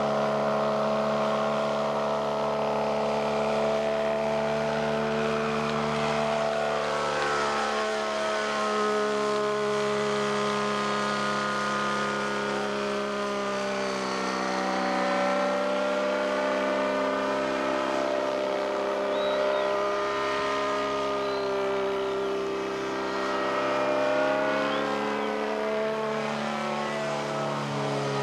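Engine and propeller of a float-equipped motorized hang glider running steadily at high power, first skimming the water on takeoff and then in flight. The engine's pitch slowly dips and rises again as it flies past.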